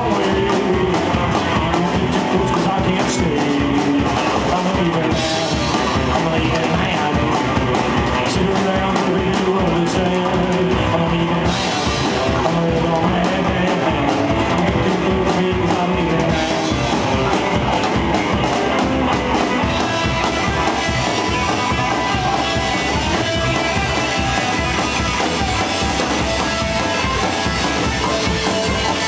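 Live band playing loud rock music: electric guitar, upright bass and drum kit together, with no break.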